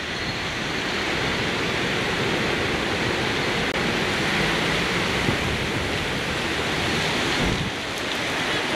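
Steady rush of wind noise on the microphone of a moving motorcycle.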